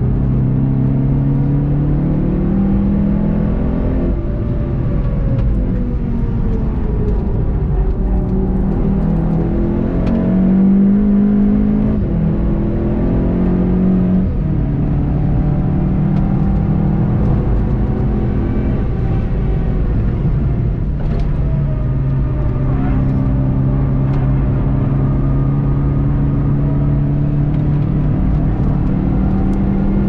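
VW Golf 7.5 GTI TCR's turbocharged four-cylinder engine under hard acceleration, its pitch climbing through each gear and dropping at the upshifts, clearly about 14 seconds in and again around 22 seconds in, with dips where the car slows for corners.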